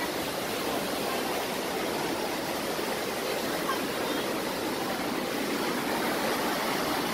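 Muddy floodwater rushing in a torrent down a street: a steady, even rush of water.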